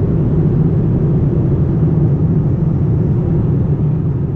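Cabin noise of a Boeing 787 airliner at cruise: a steady low rumble of airflow and engine noise heard from inside the cabin.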